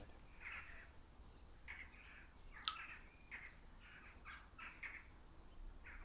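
Faint bird calls: a string of short, scratchy calls, about ten in a few seconds, with one sharper chirp near the middle.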